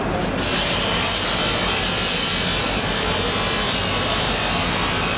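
A long fish-cutting knife being worked through the flesh behind the head of a giant bluefin tuna, making a steady scraping noise with no clear separate strokes.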